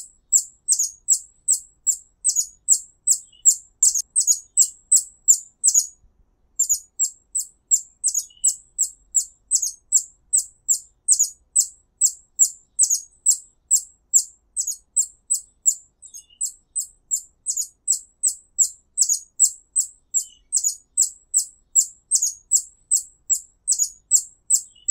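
Hummingbird calling in a steady series of sharp, very high chip notes, about two or three a second, with a brief pause about six seconds in.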